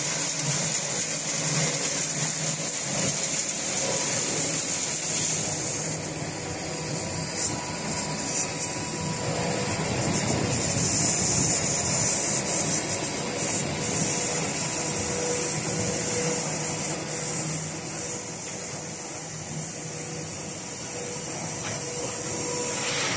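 Concrete batching plant machinery running: a steady mechanical hum with a high hiss and a faint steady whine.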